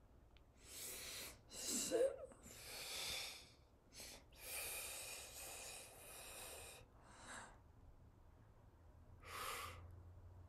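A person's audible breaths and puffs of air: a string of short hissing exhalations, the loudest about two seconds in with a brief voiced squeak.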